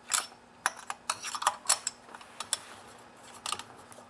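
Irregular metal clicks and taps of a Torx key on the cylinder bolts of a Stihl MS260 chainsaw as they are snugged by hand, about a dozen in all, bunched most closely in the first two seconds.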